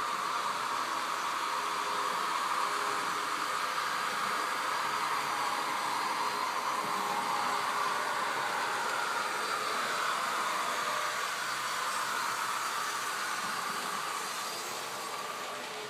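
Märklin model freight train with three electric locomotives coupled together, running along the track: a steady whirr of the locomotive motors and wheels with a hiss over it, swelling slightly in pitch around the middle and dropping a little near the end.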